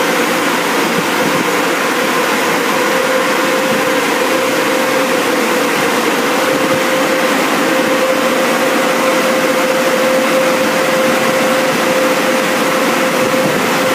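Automatic car wash air dryer blowers running, a loud, even rush of air with a steady hum.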